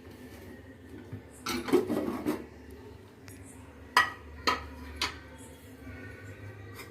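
Metal pressure cooker being opened: a burst of scraping and clattering as the lid is worked free, then three sharp metal clinks about half a second apart.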